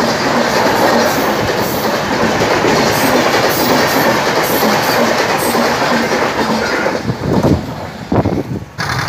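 Indian Railways passenger train running past close by, its coaches' wheels clattering on the track in a loud steady rush that falls away near the end.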